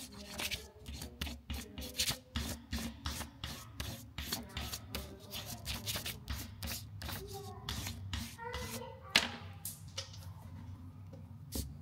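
Crayon scrubbed back and forth over paper laid on a raised emblem, making a crayon rubbing: a quick, continuous run of short scratchy strokes, with one sharper stroke about nine seconds in.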